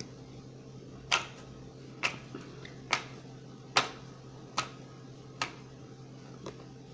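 Six sharp clicks, about one a second, over a low steady hum.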